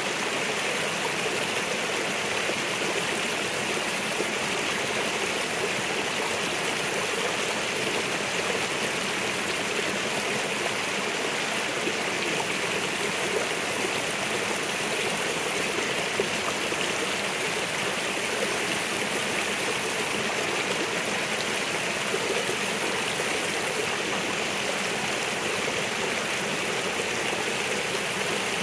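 Small mountain creek, running high after rain, splashing steadily down a short rocky cascade.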